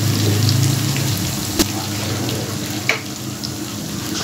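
Tomato, green chilli and ginger paste sizzling in hot oil in a frying pan as a little water is poured in from a mixer jar, with a light knock about a second and a half in.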